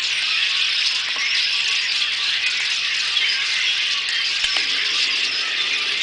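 A large flock of red-winged blackbirds calling all at once: a dense, steady chatter of many overlapping high-pitched calls.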